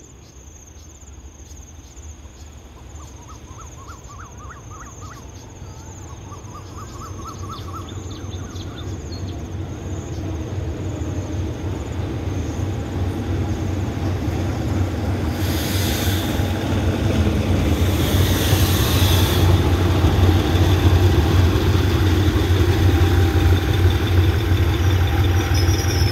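GE diesel-electric locomotive of the Thai GEK class (number 4040), heading a suburban passenger train, approaching and drawing in to stop. Its low engine drone grows steadily louder. Crickets trill at first, a bird gives a series of rising calls a few seconds in, and two short hisses come about 16 and 19 seconds in.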